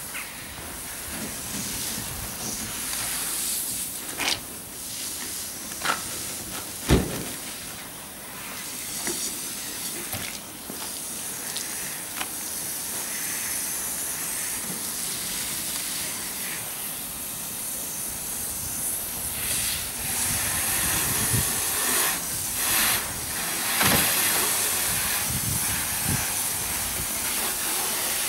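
Steady hiss of water spraying from a garden hose while a long-handled wash brush scrubs a car's body. A few sharp knocks stand out in the first seven seconds, and more scattered ones come later.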